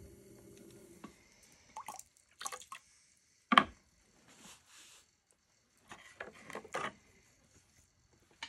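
Electric potter's wheel humming steadily, then switched off about a second in. After it, wet handling of the freshly thrown clay mug: short squelches and dripping taps, with one sharp knock about halfway through, the loudest sound.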